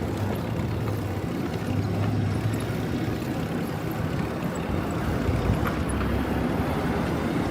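Motorcycle riding through city traffic: a steady low engine hum under road and air noise.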